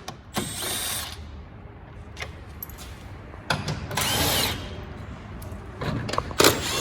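Cordless Milwaukee impact wrench running in three short bursts of about a second each, spinning fasteners off a car's front end, with small clicks and knocks between the bursts.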